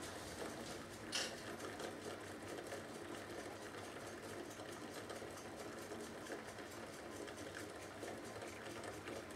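A coconut being heated by 240 V mains current through electrodes in its shell, its liquid boiling under pressure near 2 bar, gives a faint, fast, even crackle. There is a single sharp click about a second in.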